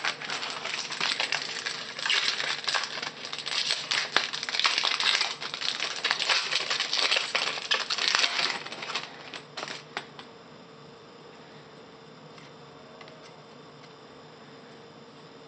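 A foil trading-card pack wrapper crinkling and tearing as it is opened: dense crackling for about ten seconds, which then stops.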